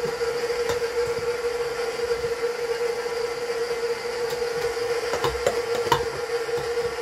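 Electric stand mixer running steadily on low speed with a steady motor whine as it beats cake batter while flour is added. A few light knocks, likely a metal bowl or utensil against the mixing bowl, come about a second in and again around five to six seconds in.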